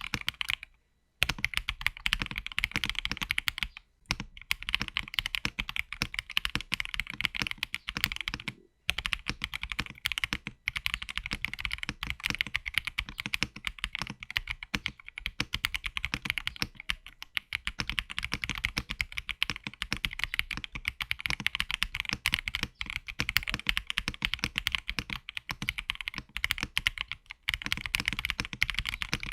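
Fast, continuous typing on an Akko ACR Top 75 acrylic top-mount mechanical keyboard with a brass plate, Crystal Wine Red linear switches and MDA Building Blocks keycaps, in its stock fully dampened build: a dense stream of key clacks broken by a few short pauses.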